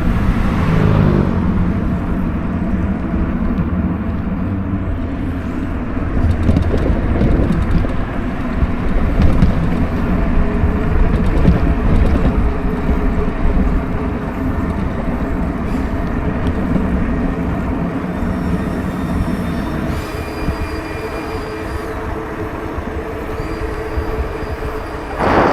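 Electric bike motor whining steadily under load on a steep uphill climb, over heavy wind rumble on the microphone.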